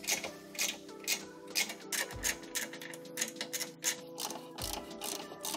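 Hand ratchet wrench clicking in quick runs as it backs out the large bolts holding a car's front bumper carrier, with background music underneath.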